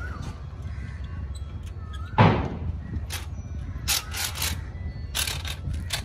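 Steel tie wire being twisted tight around rebar with a hook tool: one sharp metal knock about two seconds in, then quick scraping clicks of the wire against the steel bars, over a steady low background hum.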